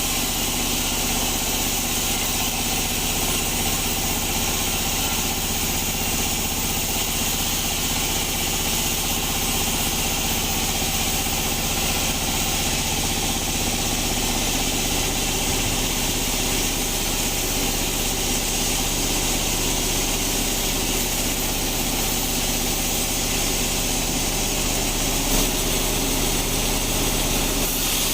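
Sawmill bandsaw machinery running with a steady, unchanging engine-like drone, and one short knock about 25 seconds in.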